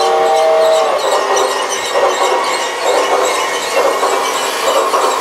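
Cheap battery-operated G scale toy steam train running past on its track, with a rushing chuff that swells and fades about once a second. A held tune ends about a second in.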